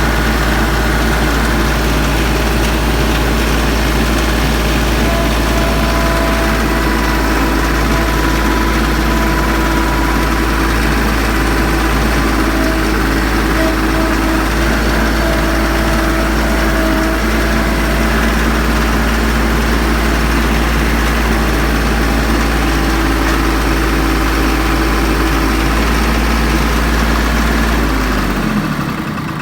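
Branson 3520h tractor's diesel engine idling steadily on a test run after its valves were adjusted to cure a tapping, then switched off and running down about a second before the end.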